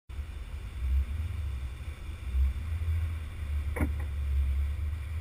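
Low, uneven rumble of wind buffeting an action camera's microphone, with a brief faint squeak about four seconds in.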